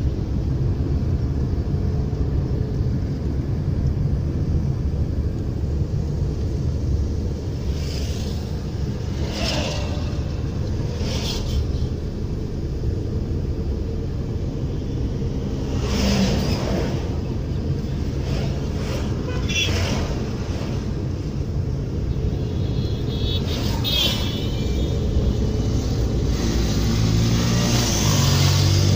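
Steady low road rumble of a car driving at speed, heard from inside the cabin, with several brief louder swooshes as traffic goes by.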